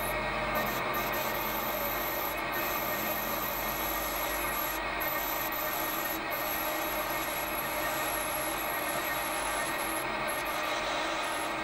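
Metal lathe parting off aluminium bar stock: a steady grinding cutting noise over the running machine, with a thin high whine that drops out briefly a few times.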